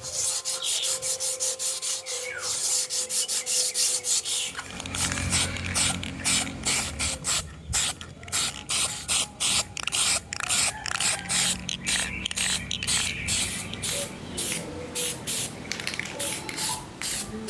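Rapid short bursts of spray hiss, several a second, like a nozzle being pulsed on and off; a low steady hum joins about four seconds in.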